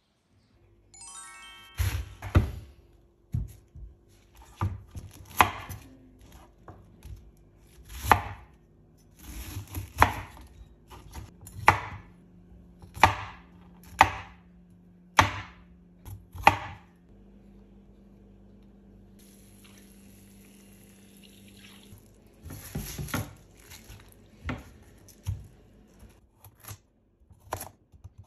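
Chef's knife cutting broccoli and carrot on a bamboo cutting board: a sharp knock of the blade on the wood every second or so, with a pause of several seconds in the middle.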